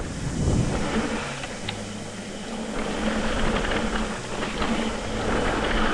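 Mountain bike rolling fast down a dirt jump trail: steady tyre and wind rushing noise, with a faint steady hum underneath.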